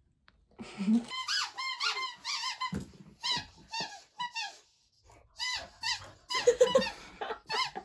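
A dog chewing a squeaky toy ball, which squeaks over and over in quick runs of short, high, wavering squeaks, with a couple of brief pauses between the runs.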